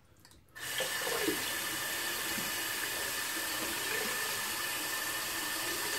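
Tap running steadily into a sink, starting about half a second in, as a safety razor is rinsed under it to clear clogged hair and lather.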